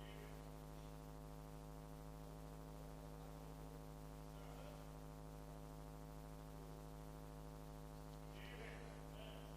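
Faint, steady electrical hum and buzz with many evenly spaced overtones, unchanging throughout. Faint brief sounds come through higher up near the end.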